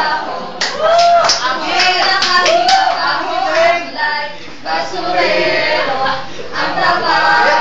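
A small group of mixed voices singing together unaccompanied, their pitches sliding up and down, with several sharp claps in the first three seconds.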